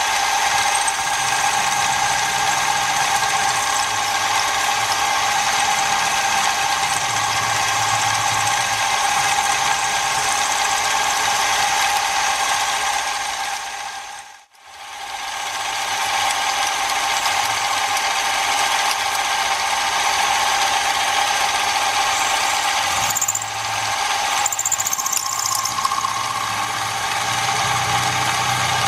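Small milling machine running with an end mill cutting metal: a steady whine made of several pitches over the grind of the cut. It fades out briefly about halfway through, then comes back at the same level.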